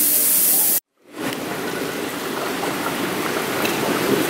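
Fog machine jetting out a loud, steady hiss that cuts off abruptly a little under a second in. After a brief silence, a softer steady rushing noise follows.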